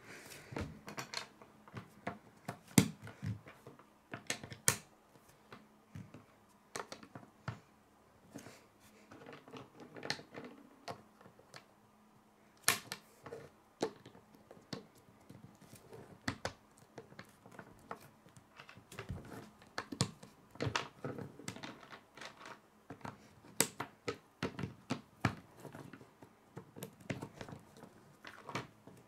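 Plastic K'nex rods and connectors clicking and knocking as they are handled, snapped together and set down on a wooden tabletop: irregular sharp clicks and light knocks.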